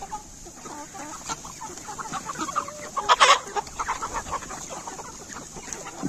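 A flock of desi chickens clucking, many short calls overlapping, with one louder call about three seconds in.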